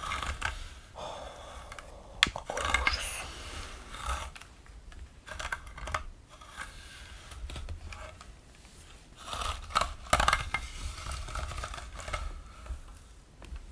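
Close-miked hair being brushed and handled: irregular crackly rustling strokes through long hair, with a sharp click about two seconds in.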